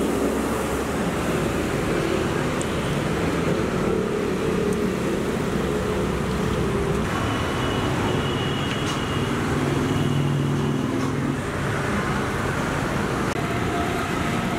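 Steady street traffic noise of a busy road, with a few faint tones from passing vehicles.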